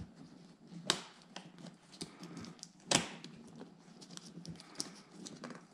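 Hands working the small plastic retaining clips and material of a car seat cover: scattered light clicks and rustling, with two sharper knocks about a second in and about three seconds in.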